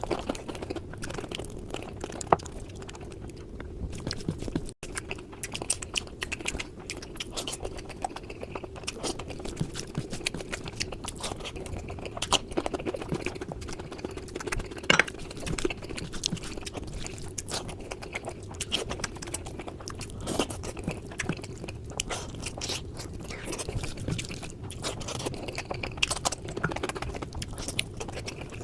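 Close-miked eating: a person chewing and biting food with frequent crunching and wet clicking mouth sounds, irregular throughout.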